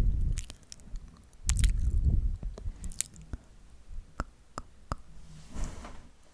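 ASMR mouth sounds close to a sensitive microphone: wet tongue and lip clicks and smacks, several single sharp clicks spaced under a second apart. There are low muffled rumbles at the start and about a second and a half in.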